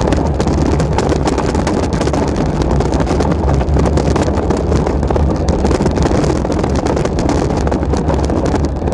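Wind buffeting the microphone over the rumble and rattle of a mountain bike running fast down a stony dirt trail, with many small knocks from stones and the bike's parts.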